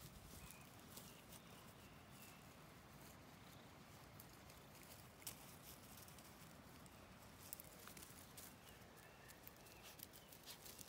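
Near silence: faint outdoor background with a few scattered soft clicks and rustles.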